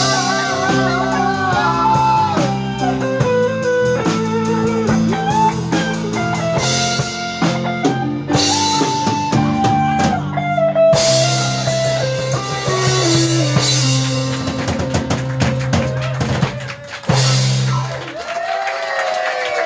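Live band playing an instrumental passage on electric guitars, keyboards, bass and drum kit. The song comes to its close on a short held chord about three-quarters of the way through, followed by quieter sliding notes.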